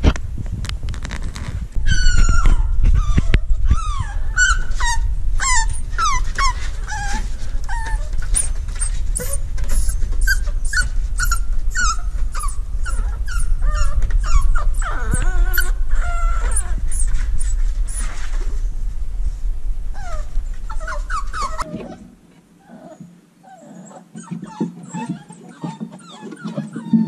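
Several basenji puppies whining and yipping in many short, high calls that bend up and down, over a low rumbling of the puppies nosing and pushing against the phone's microphone. About 22 s in the rumble and most of the calling stop, leaving a few softer whines.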